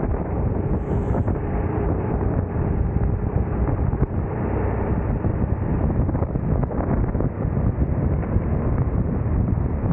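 Onboard go-kart at racing speed: heavy wind buffeting on the camera microphone over the kart's engine running, whose faint steady tone fades into the wind noise about halfway through.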